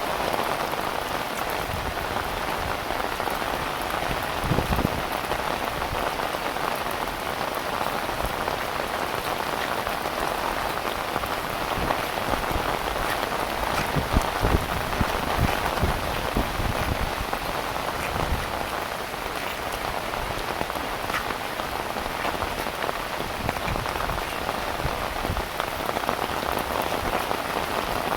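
Heavy rain falling steadily, a dense patter of drops on surfaces, with a few louder low gusts or splashes about five seconds in and again midway.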